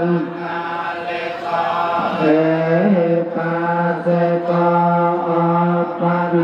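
Funeral chanting held almost on one pitch, in phrases of one to two seconds with brief breaks between them and a small upward bend at some phrase ends.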